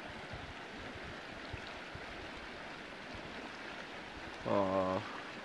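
Fast, choppy river water rushing steadily. Near the end, a brief low voice sound, a steady hum of about half a second.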